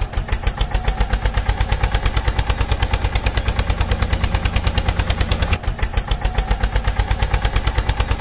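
Tractor engine sound putting steadily, an even rapid beat of about ten pulses a second, with a brief hitch about five and a half seconds in.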